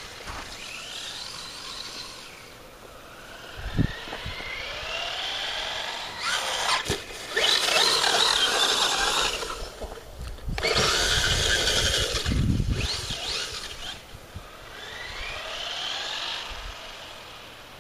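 Brushless electric motor of a Traxxas Stampede 4x4 RC truck on a 3S LiPo whining and rising in pitch over and over as it accelerates. It is loudest from about eight to twelve seconds in, as the truck comes close. Short low thumps sound at about four and twelve and a half seconds.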